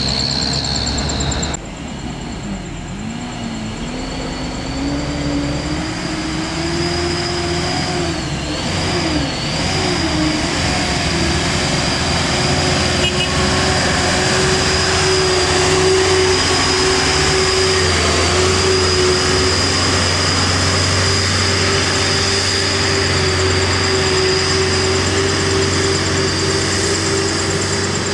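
Mitsubishi Canter light dump truck's diesel engine pulling under load as it comes up the road and passes, its pitch rising for several seconds and then holding steady.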